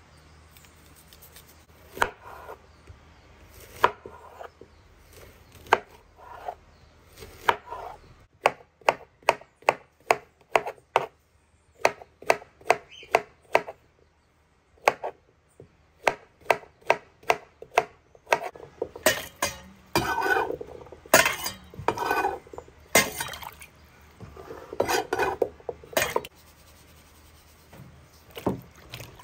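Kitchen knife cutting peeled green bananas into chunks on a granite countertop: a few separate cuts, then runs of quick knife taps on the stone, about two to three a second. Later come louder knocks and rattles as the pieces are gathered into a steel bowl.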